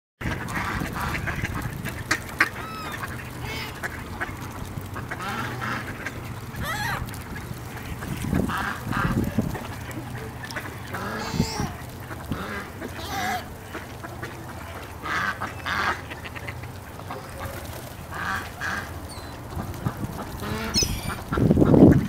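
Mallards quacking in short, scattered calls over a steady low hum, with a louder low rumbling noise near the end.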